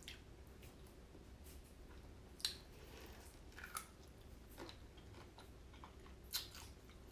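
Faint eating sounds: a person chewing food close to the microphone, with scattered short sharp clicks, the clearest about two and a half, three and a half, and six and a half seconds in.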